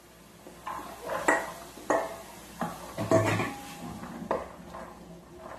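A stainless steel bowl clinking and scraping against a metal cooking pan as peas are tipped into it: a series of sharp knocks about every half second, one leaving a short ring, then a wooden spoon stirring the peas in the pan.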